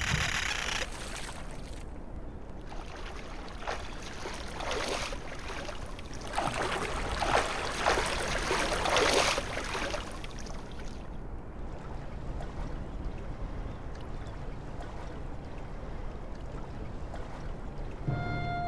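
Small sea waves lapping and washing against shoreline rocks, swelling in a few louder surges in the middle. Music comes in near the end.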